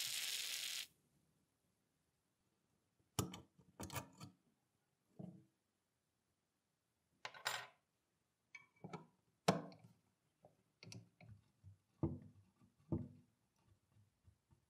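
Aerosol penetrating oil hissing from its spray straw, cutting off about a second in. Then a series of irregular metallic clinks and knocks: tools and parts of a rusty cast-iron mechanical coin bank being handled, with a screwdriver set into a rusted screw.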